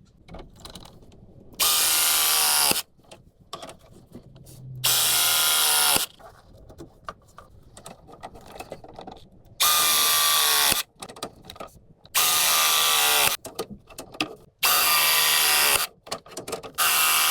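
A handheld power tool running in six short bursts of a little over a second each, with pitch falling in each burst, and quieter clicks and handling between bursts. The tool is being used to join copper pipe.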